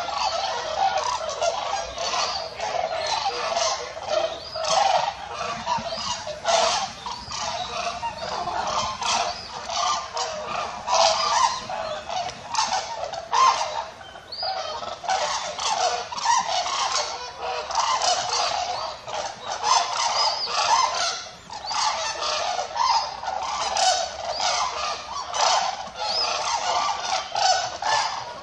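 A flock of red-crowned cranes calling, many calls overlapping continuously, with a brief lull about halfway through.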